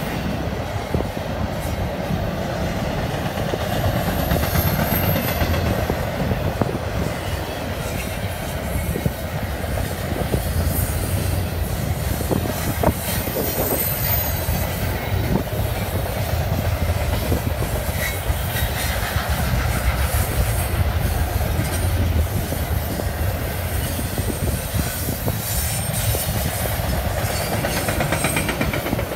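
Double-stack container freight train rolling past: a steady rumble of steel wheels on rail, with repeated clacking as the wheels pass over rail joints.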